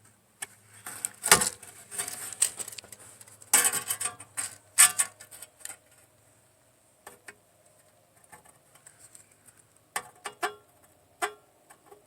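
Clicks and clatter of hand tools and sheet metal being handled while measuring and marking the metal. There is a sharp knock about a second in, a burst of rattling a couple of seconds later, then a few scattered clicks.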